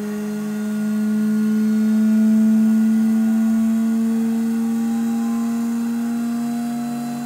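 Asahi-type high-speed tubular-bowl centrifuge running: a steady machine hum whose pitch rises slowly as the bowl gathers speed, swelling in loudness about halfway through.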